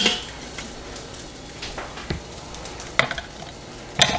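Metal tongs clacking against the stainless steel inner pot of an Instant Pot as cooked corn cobs are lifted out. There is a sharp ringing clack at the start, then a few lighter knocks, over a low steady hiss.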